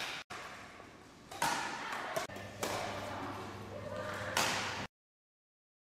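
Badminton racket smashing the shuttlecock: several sharp cracks that echo round a large sports hall, the loudest near the end, before the sound cuts off.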